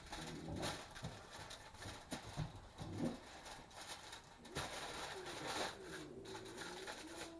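Aluminum foil crinkling and creasing in short irregular rustles as it is folded by hand. From about halfway, a faint wavering hum-like tone runs underneath.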